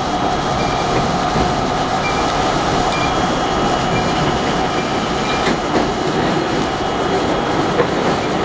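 R32 subway car running at speed, heard from inside the car: a steady rumble of wheels on rail with a steady tone through it and a few sharp clicks.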